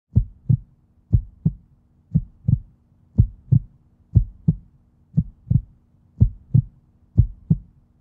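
Heartbeat sound: a steady lub-dub of paired low thumps, about one beat a second, over a faint steady low hum.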